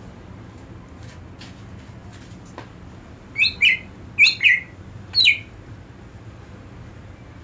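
A cucak ijo (green leafbird) calling: five short chirps, each falling in pitch, given as two quick pairs and then a single one.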